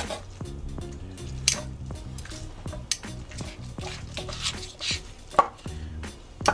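A chef's knife and metal tongs working slow-cooked pork on a wooden cutting board: wet, squishy sounds of tender meat being pulled from the bone, with several sharp knocks of the blade on the board. Background music plays throughout.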